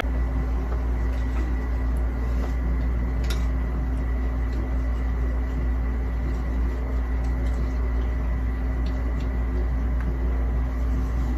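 Steady low hum and hiss of background noise, with a constant faint high whine and a few faint clicks.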